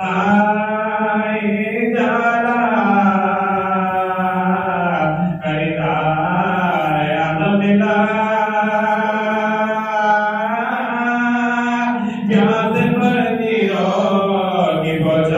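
A man's solo voice chanting a devotional recitation from a book in long, held, wavering notes, with short breaths between phrases and no instruments.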